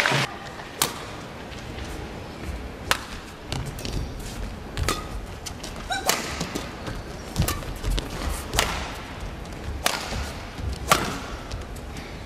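Badminton racket strikes on a shuttlecock during a rally: a string of sharp hits about one to two seconds apart. Short squeaks of court shoes sound between the hits.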